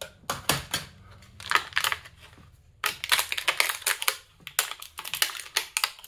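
Clear plastic waterproof case being opened and a small metal flashlight and folding knife lifted out of it, plastic and metal clicking and rattling in several quick runs of sharp clicks.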